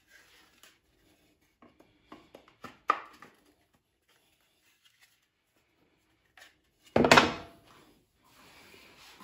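Plywood pieces knocking lightly against each other and the sled's fence as they are handled, then one louder wooden clatter about seven seconds in as the pieces are laid down on the plywood crosscut sled.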